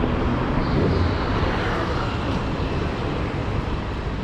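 Steady city street noise, mostly a low rumble of vehicles.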